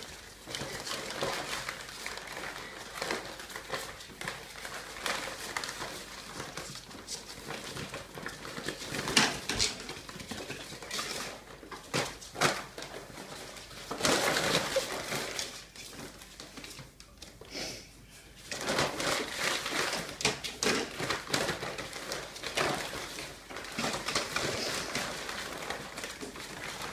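Ferrets scrabbling over and burrowing into an empty chicken feed sack on a tiled floor: irregular rustling and crinkling of the sack, with claws skittering, coming louder in surges.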